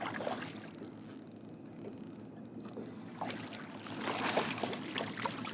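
A boat's engine hums steadily and low. About four seconds in, water splashes as a hooked fish thrashes at the surface beside the boat while it is reeled in.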